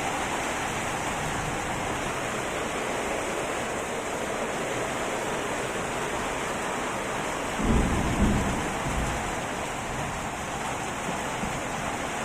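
Heavy rain falling steadily, with a low rumble of thunder about eight seconds in that peaks twice over a second and a half.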